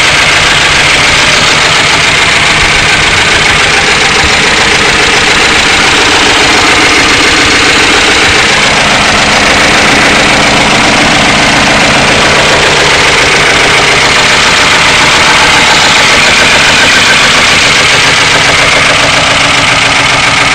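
1992 Ford Crown Victoria's 4.6L V8 idling steadily and loudly, with a rapid, even clatter running through it that the owner suspects comes from low oil pressure.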